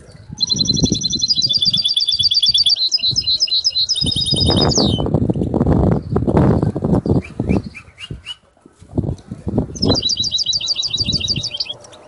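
A canary singing fast trills of rapidly repeated high notes, in two bouts: one over the first few seconds and another near the end. In between, a louder, low, rustling, fluttering noise.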